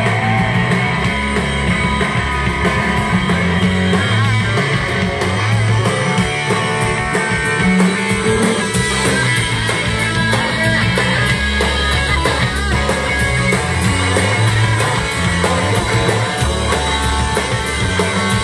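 Live rock band playing loudly and steadily, with electric guitar and a drum kit.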